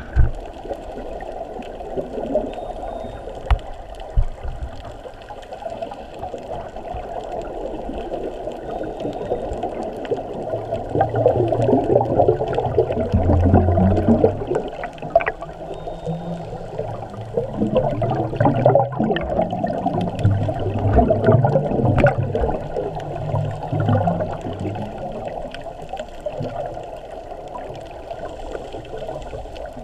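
Muffled underwater rushing and bubbling of water around a GoPro in its waterproof housing as a snorkeler swims, with a low rumble swelling in the middle and a few small clicks.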